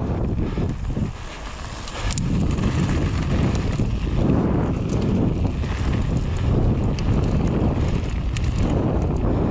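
Wind noise on the microphone over the rumble of mountain-bike tyres rolling on a gravel trail, with small scattered clicks. The rumble drops off for about a second, a second in, then picks up again.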